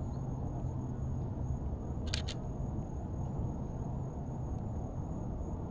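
Canon EOS RP shutter firing once about two seconds in, a quick double click, over a steady low rumble.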